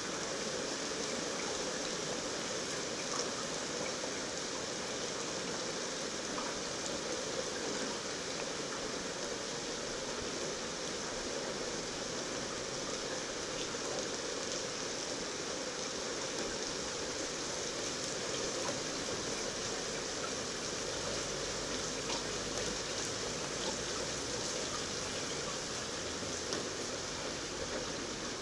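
Heavy, steady downpour: a continuous hiss of rain with scattered ticks of individual drops landing close by.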